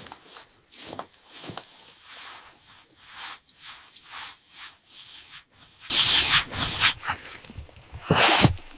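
Repeated rough scraping or rubbing strokes, about two a second, then louder, longer scraping about six seconds in and again near the end.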